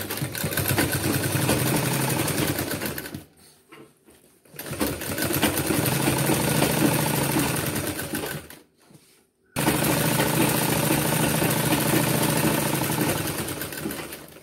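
Sewing machine running at speed, stitching down a folded hem, in three spells with short pauses between them; the last spell starts abruptly.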